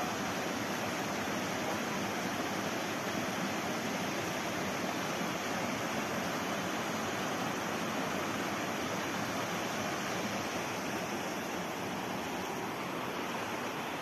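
Steady rush of a small stream spilling over stone cascades, easing a little near the end.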